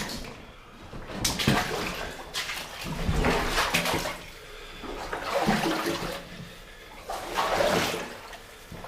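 Feet wading through knee-deep water, the water sloshing and splashing with each stride in about four surging swells.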